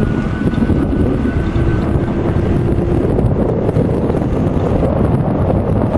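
Wind buffeting the microphone of a moving electric bike, a loud, steady rumble. A faint, thin, steady whine sits underneath through the first half.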